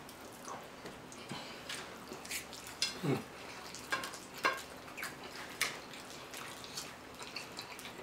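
Eating sounds of spaghetti casserole: wet chewing and lip smacking, with scattered short clicks of forks against plates. There is a brief falling hum about three seconds in.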